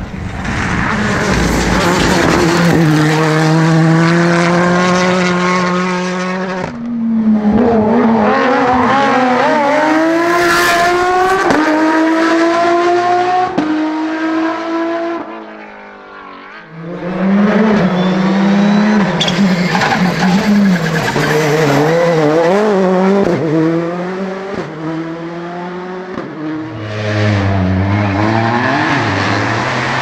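Rally cars driven flat out on a tarmac stage, several in turn. Each engine climbs in revs and drops in pitch at each upshift. The middle pass is a Porsche 911 GT3's flat-six.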